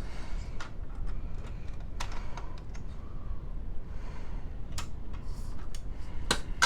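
Irregular light clicks and knocks from handling a Notifier VG10 fire alarm pull station.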